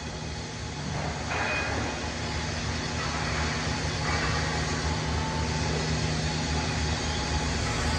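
Steady machinery hum and rumble in a large factory workshop, with a low droning tone; it gets louder about a second in.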